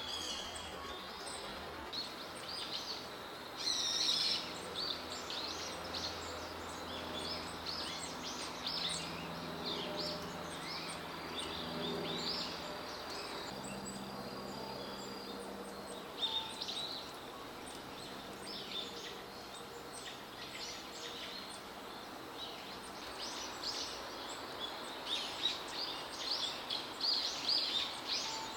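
Small songbirds chirping, many short high calls in quick runs, busiest in the first seconds and again near the end, over a faint low steady hum.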